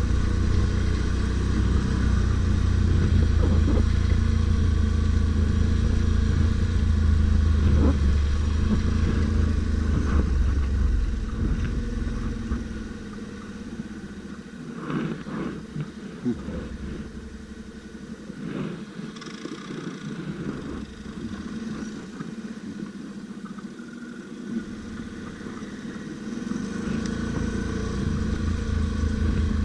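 ATV engine running under way, loud and steady at first, then easing off for a long stretch with a few knocks and rattles, and picking up again near the end.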